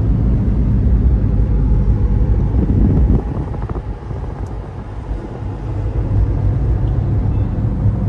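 Road noise inside a moving car: a steady low rumble of tyres and engine, easing a little about three seconds in and building again a couple of seconds later.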